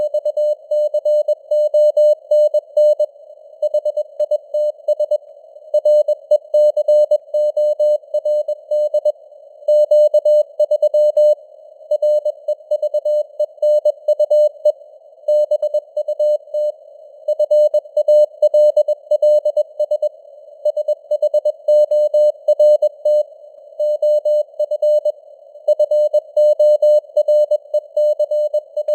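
Morse code sent at 21 words per minute as a single keyed mid-pitched tone, in rapid groups of dots and dashes with short gaps between words. It sits over a band of hiss around the tone that simulates radio receiver noise, and the signal strength varies as simulated fading (QSB).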